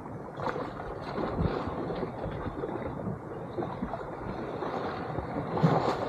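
Sea water sloshing and splashing close to the microphone in irregular small strokes, with one louder splash near the end.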